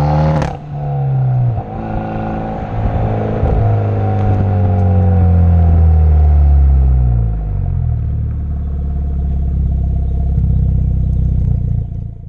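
Genesis Coupe 2.0T's turbocharged four-cylinder heard through a 3-inch CPE catback exhaust with downpipe and test pipe: revving up, cut off by a short sharp burst of noise about half a second in, then the note falls steadily as the car slows, dropping again around seven seconds in to a low steady drone for the last few seconds.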